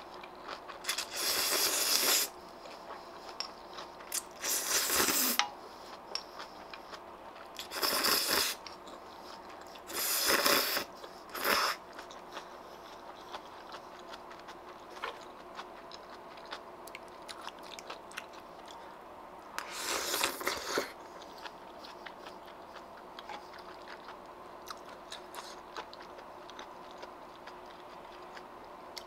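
Ramyun noodles slurped in several short, loud bursts, with chewing and soft crunching between them.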